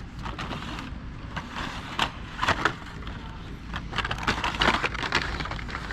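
Handling noise from carded Hot Wheels cars on store pegs: a string of short clicks and crackles of plastic blister packs being flipped through, over a low steady store hum.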